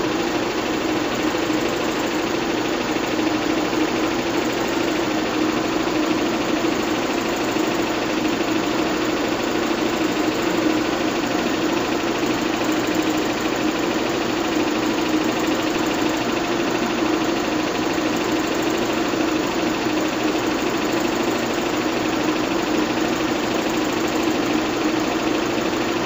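Bell & Howell 122 LR 8mm film projector running at its highest speed: a steady mechanical whirr and rattle of its motor, fan and film transport, with a constant hum in the middle of the range.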